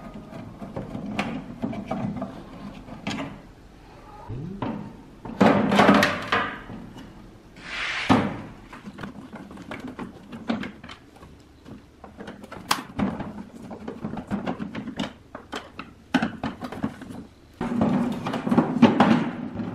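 Hard plastic fan housing and louvre panel being worked apart by hand with a screwdriver: scattered clicks and knocks of plastic parts, with louder scraping about six and eight seconds in and again near the end.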